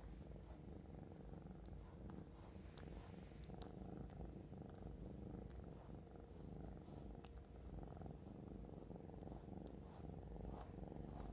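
Kitten purring steadily, a low continuous rumble, with a few faint small clicks.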